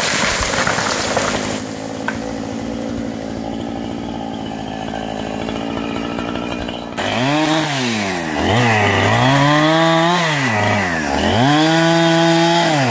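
Chainsaw engine running steadily, then from about seven seconds in revving up and down over and over, each rise and fall lasting a second or two.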